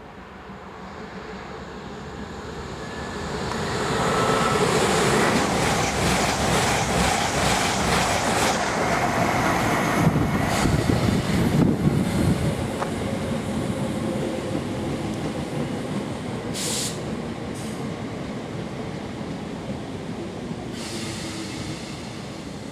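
First Capital Connect electric multiple unit approaching and running along the platform. It grows louder over the first few seconds, with rapid wheel clicks over rail joints and a faint whine, then its rumble eases gradually, with two brief hisses in the second half.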